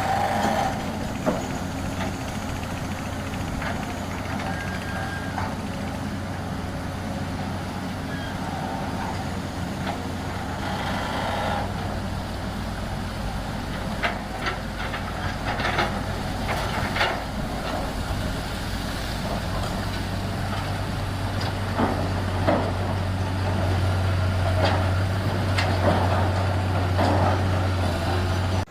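Diesel engine of a rotary bore-pile drilling rig running steadily. Its low hum grows louder about two-thirds of the way through, with scattered sharp knocks from the drilling gear in the second half.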